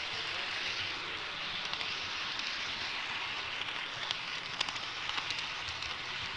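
HO-scale model train rolling along its track, heard from a camera riding on the train: a steady, hissing rattle of wheels on rail, with a few sharp clicks about four to five seconds in as it runs over switches.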